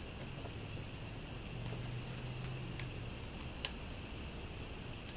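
Three short, sharp metal clicks from the crank block and bull gear inside an Atlas 7B metal shaper being handled and shifted by hand, the last near the end, over a low steady hum.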